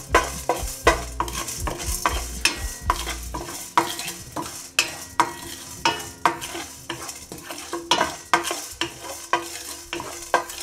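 Wooden spatula stirring chana dal and urad dal as they dry-roast in a kadai with no oil. It makes repeated scrapes and taps against the pan, about two or three strokes a second.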